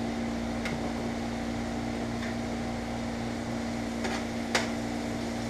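Zucchini and salt pork frying softly in a cast iron skillet under a steady electrical hum. A few light clinks of a fork against the skillet, the sharpest about four and a half seconds in.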